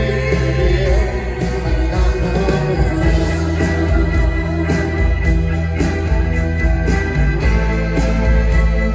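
Rock band playing live: drums with regular cymbal hits over a heavy bass line and guitar, with a sung line ending about a second in.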